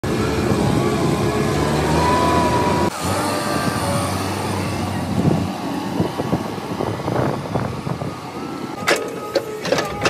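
Tata Hitachi Shinrai backhoe loader's diesel engine running under work, the sound changing abruptly about three seconds in. Several sharp clanks near the end.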